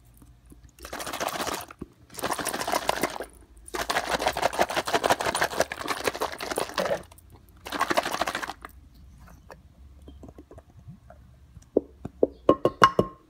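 A bottle of Elmer's school glue topped up with water being shaken hard in four bursts, the liquid sloshing and rattling inside. A few sharp clicks and taps follow near the end.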